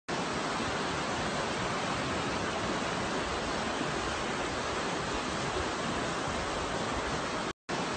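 Fast-flowing mountain river rushing over its rapids: a steady, even rush of water, cut off briefly near the end.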